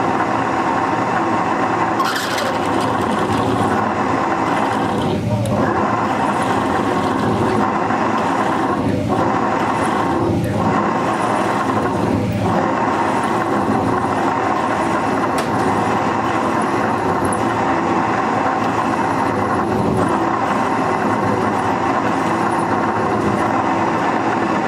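Myford Rodney milling machine running with a reamer in the chuck, reaming a pin hole in a metal clamp block: a steady, loud mechanical drone of motor, belt drive and spindle, with several held tones.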